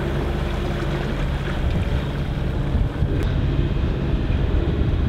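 Sailboat motoring in calm seas: a steady low hum from the inboard engine under a continuous rush of water along the hull, with wind buffeting the microphone.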